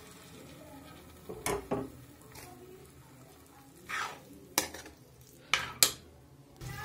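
Steel spoon stirring potato and soya-chunk gravy in a kadhai just after hot water was added, with a faint sizzle; the spoon clinks sharply against the pan about six times, loudest near the end.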